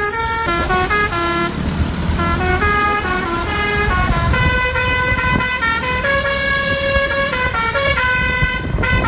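Basuri 'telolet' horn, a multi-tone air horn, playing a tune of short steady notes that step up and down several times a second, over a low vehicle rumble.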